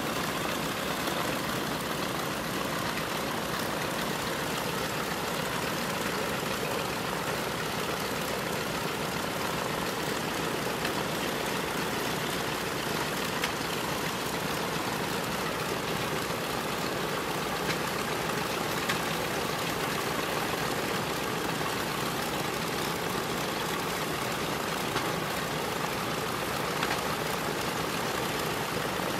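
A B-25J Mitchell bomber's twin Wright R-2600 Cyclone radial engines idling steadily on the ground.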